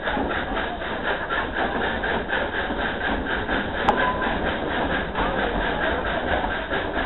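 Dollywood's narrow-gauge Baldwin 2-8-2 steam locomotive No. 192 chuffing steadily under way, about four exhaust beats a second, over the rumble of the passenger cars on the track. A single sharp click sounds about four seconds in.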